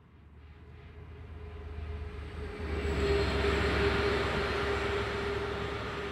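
GB Railfreight Class 66 diesel locomotive, its EMD two-stroke V12 engine running, passing light engine with no train behind it. The engine drone builds as it approaches, is loudest about three to four seconds in, then slowly fades as it runs away, with a steady whine over it.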